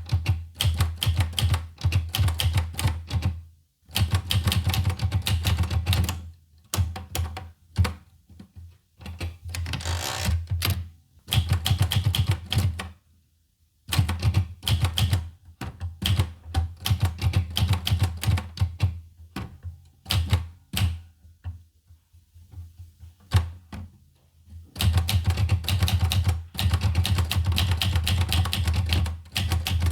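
Olivetti Lettera 25 portable manual typewriter being typed on: quick runs of sharp key strikes in bursts of a few seconds, broken by short pauses.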